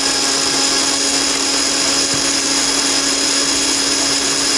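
Electric blender running steadily at speed, blending chopped banana with water into juice: a steady motor hum with a high whine over a dense hiss.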